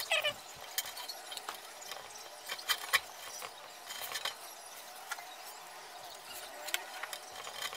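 Irregular light clicks and knocks of handling as a carrying strap is threaded through the slots of a portable welding machine's case and pulled tight, with two sharper clicks about three seconds in.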